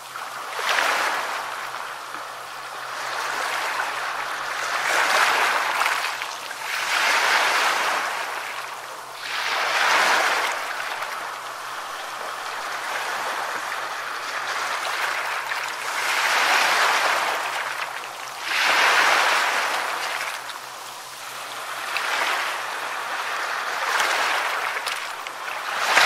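Small sea waves breaking and washing onto the shore in foamy surf, the rush of water swelling and fading every few seconds.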